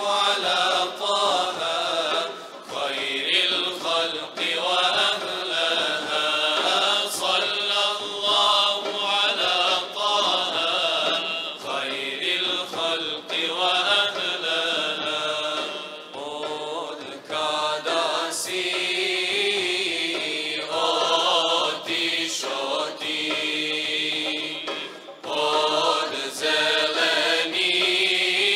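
A choir singing an ilahija, a Bosnian Islamic devotional hymn, in long melodic phrases with brief pauses between them.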